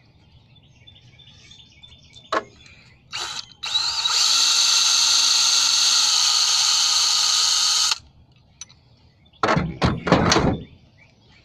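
A power tool runs steadily for about four seconds, cleaning a head bolt's threads, and then cuts off. Near the end come a few short loud rasps.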